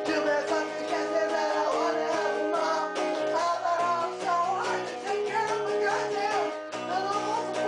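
An electric guitar strumming chords while a man sings loudly over it, a homemade comic song.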